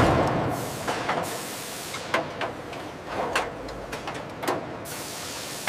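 Sheet-metal stamping press and shop machinery: a steady hiss with irregular knocks and clanks about once a second.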